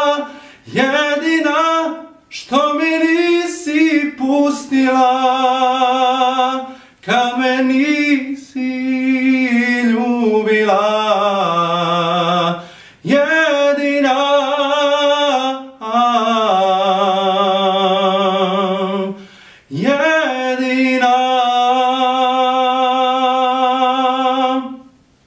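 A solo male tenor voice singing unaccompanied: several phrases of long, held notes with vibrato, ending on a long note held for about four seconds.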